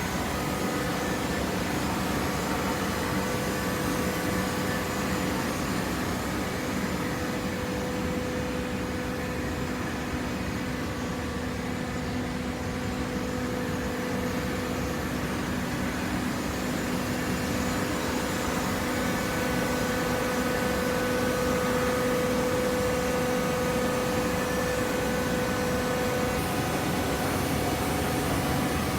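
Steady machine hum with a few held tones from a running corrugated-box baler and its hydraulic power unit; the level rises slightly past the middle.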